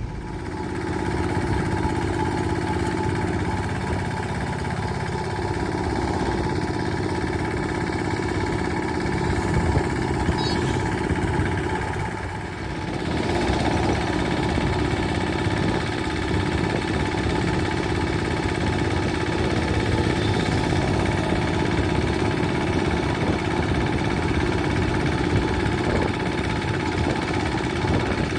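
Heavy diesel engine running steadily, dipping briefly about twelve seconds in and then carrying on.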